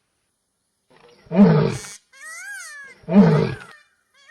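Animal calls: two short, deep roar-like grunts about a second and a half apart, with a high whistling call that rises and falls in pitch between them. The calls start about a second in.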